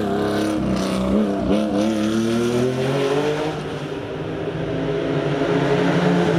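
Air-cooled flat-six of a Porsche 911 Carrera RS racing car accelerating hard uphill. Its note climbs through the revs with short drops at the upshifts. It fades a little about four seconds in, then grows louder again as the car comes closer.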